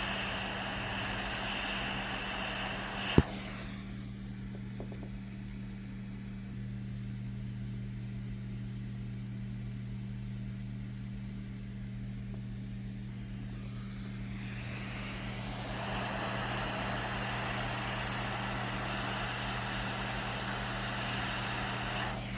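Hot air rework station blowing, a steady hiss over an electrical hum, while the buck converter chip is desoldered and replaced on the graphics card; a sharp click about three seconds in, then the hiss drops and returns stronger from about sixteen seconds.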